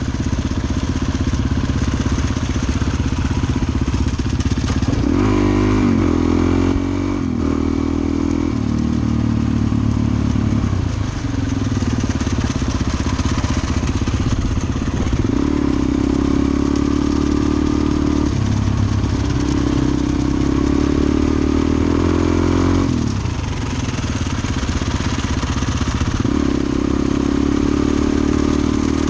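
Suzuki DR-Z400 single-cylinder four-stroke engine running under way on a dirt road. Its pitch rises and falls several times as the throttle opens and closes, over a steady rush of wind.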